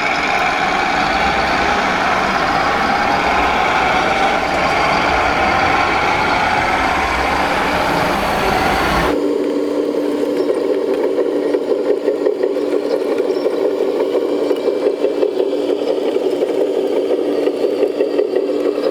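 1/14-scale RC construction machines running, giving a steady engine-like sound. About nine seconds in it cuts abruptly to a different, lower fluttering hum with a steady tone.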